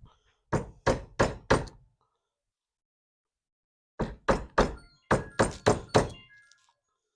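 Eleven sharp hammer blows in three quick runs of four, three and four, driving the roll pin out of a vent window handle clamped in a vise.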